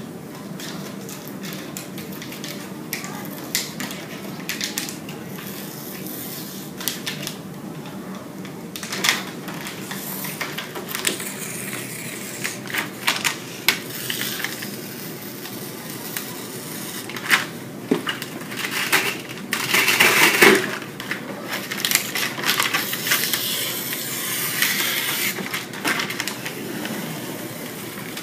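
Protective paper backing being peeled off a ripple tank's angled panel and handled: irregular crackling and rustling with scattered sharp clicks and knocks, busiest through the middle and loudest about twenty seconds in.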